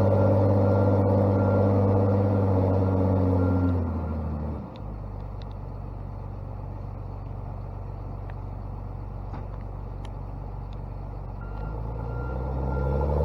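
Heavy logging machine's diesel engine working under throttle with a backup alarm beeping, then dropping to a low idle about four seconds in and revving back up near the end as the beeping returns.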